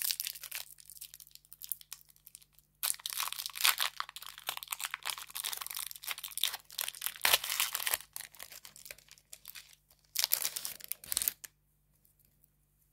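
Foil wrapper of a hockey trading-card pack being torn open and crinkled by hand, in three spells of crinkling with short pauses between.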